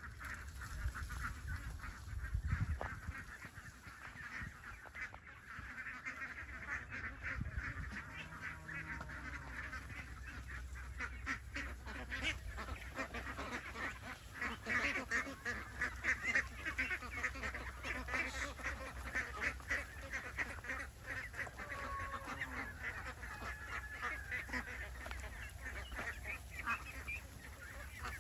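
A large flock of Jinding laying ducks quacking together, a dense chatter of many overlapping calls.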